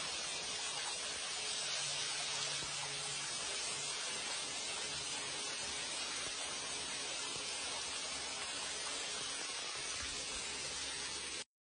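A steady, even hiss with no pauses or changes, like spray or rushing air, cutting off abruptly near the end.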